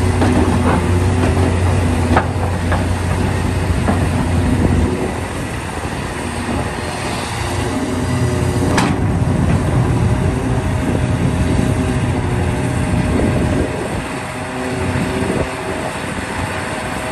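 Large hydraulic excavator at work: its diesel engine runs with a deep drone that eases off about five seconds in. Scattered metallic clanks cut through, the sharpest just past halfway, and a steady whine runs through the second half.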